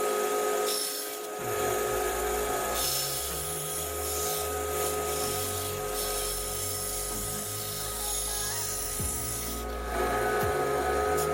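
Plastic sheet being cut, a steady rasping of the cutting tool through the plastic.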